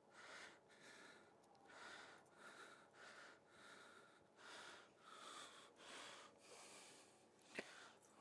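Quiet, close breathing of a man at work, soft puffs through the nose roughly once a second, with a single sharp click near the end.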